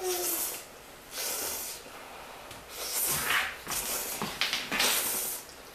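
Spicy ramyon noodles being slurped up in about four short, hissy slurps, each around half a second long.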